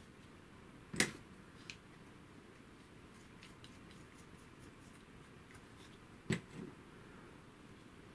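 Small hard clicks and taps of nylon standoffs and bolts being handled and fitted to the FR4 plates of a small camera cage: two sharper knocks, about a second in and again about six seconds in, with a few faint ticks between.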